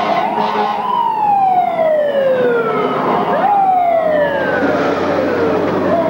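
Fire engine siren wailing: its pitch sweeps up quickly, then falls slowly over two to three seconds, and repeats about every three seconds.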